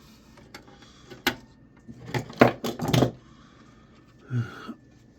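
Hard plastic and metal computer parts clicking and knocking as they are pulled and pried apart by hand, with a cluster of sharp knocks a little after two seconds in.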